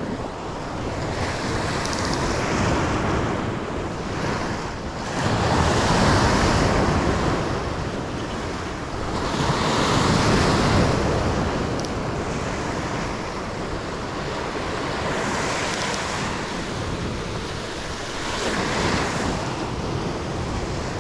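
Sea waves breaking and washing on the shore in repeated surges every few seconds, with wind buffeting the microphone.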